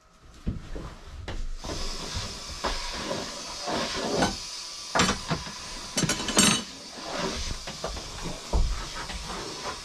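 A power sander with its dust extractor starts up about a second and a half in and runs with a steady hiss, sanding down fibreglass filler around a window opening in the hull. Several sharp knocks and clicks come through it about halfway.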